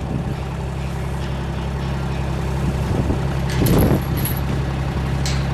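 A vehicle engine running steadily at a low, even hum, with a brief louder noise about four seconds in.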